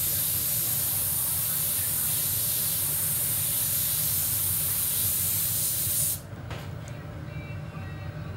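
A loud, steady hiss of a pressurised jet that cuts off abruptly about six seconds in, over the low steady roar of the glass furnace burners.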